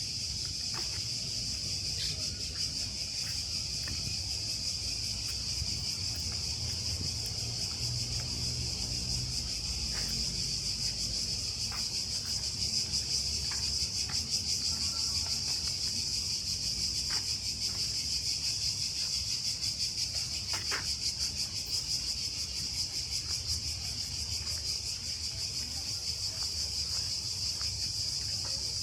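A chorus of cicadas buzzing steadily and densely, swelling a little midway, over a constant low rumble.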